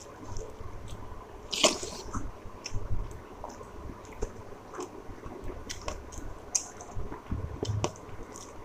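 Close-up chewing and wet mouth sounds of a person eating a plate of rice with curries, with soft squishes and small clicks. A sharper, louder sound about one and a half seconds in stands out, and a smaller one a second later.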